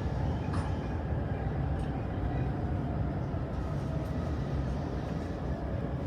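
Steady running noise heard from inside an E531 series electric train car: a continuous low rumble of the wheels on the rails with a faint steady whine above it.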